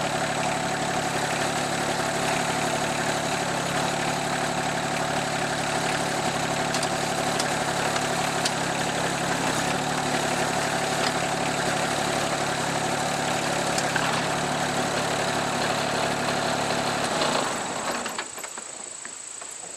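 RK24 subcompact tractor engine running while the front-loader hydraulics are worked to lift the bucket off its mounts, its pitch shifting slightly a couple of times under the hydraulic load. Near the end the engine shuts off, leaving crickets chirping.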